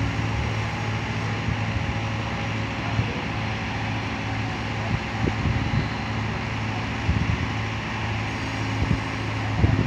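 Diesel engines of heavy construction machinery running steadily with a low drone, with a few faint knocks from about halfway through.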